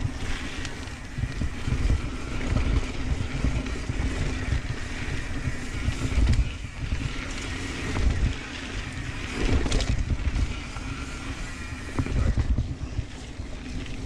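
Santa Cruz Tallboy mountain bike descending a dirt trail: tyre roar and rattle with wind buffeting the camera microphone, swelling in gusts every second or two over a steady low hum, with a few sharp clicks.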